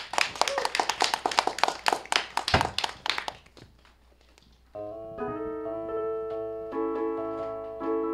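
Audience clapping for about three and a half seconds, then a short lull. About five seconds in, an electronic keyboard instrument starts playing sustained electric-piano-like chords.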